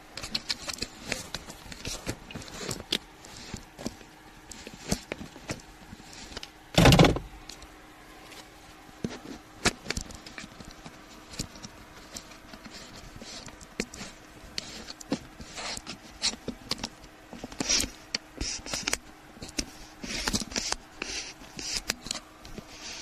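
Handling noise from a phone camera on a selfie stick: scattered clicks, knocks and rubbing as it is gripped and adjusted, with one loud thump about seven seconds in.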